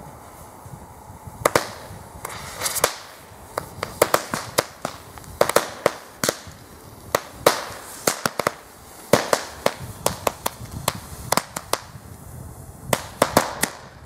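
A 40-shot string of Weco Mini Knaller firecrackers going off: a fast, irregular run of small sharp bangs. It starts about a second and a half in and stops near the end.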